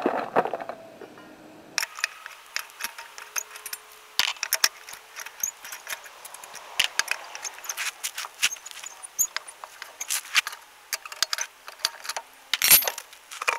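Four-way cross lug wrench spinning lug nuts off a car wheel: irregular metallic clicks and rattles of the socket on the nuts, starting about two seconds in, with a denser burst near the end.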